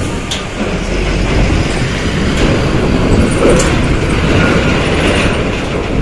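A large intercity bus passing close by, its engine and tyres making a loud, steady rumble, with a few short clanks.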